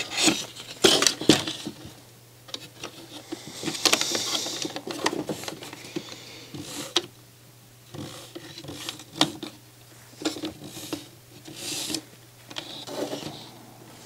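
Plastic parts of a NAD C540 CD player's disc-loader mechanism clicking, knocking and scraping as it is handled and turned over by hand, in irregular bursts.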